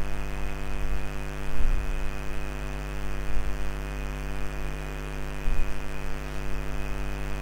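Steady electrical mains hum in the recording, a buzz of many even tones, with a few soft low bumps.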